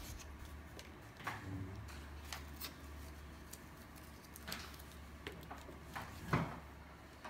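Small plastic toy parts being handled: scattered light clicks and taps as a little figure is fitted into a plastic capsule, with one louder knock about six seconds in, over a faint low hum.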